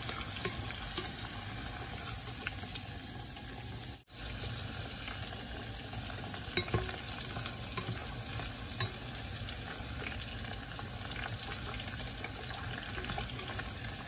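Marinated sun-dried pork strips deep-frying in hot oil in an enamel pot, sizzling steadily, with a few sharp clicks of tongs against the pot as the pieces are turned. The sound cuts out for an instant about four seconds in.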